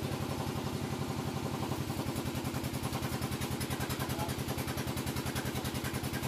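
A small engine idling steadily, with a fast, even pulse of about a dozen beats a second.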